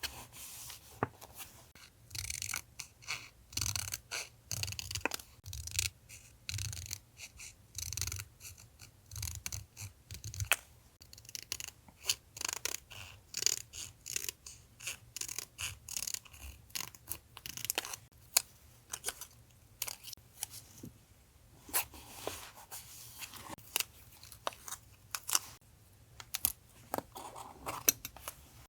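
Paper being handled close to the microphone while a journal collage is made: a busy run of short rustles and crinkles with sharp clicks in between, and a brief lull a little before the end.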